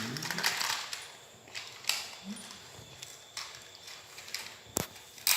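Irregular clicks, knocks and rattles of a toy being handled, with a short low squeak about two seconds in and a sharp click near the end.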